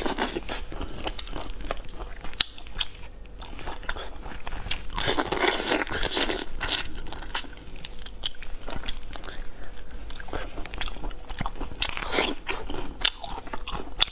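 A person eating shrimp close to a clip-on microphone: biting, crunching and chewing, with many small irregular clicks and a busier stretch about five seconds in.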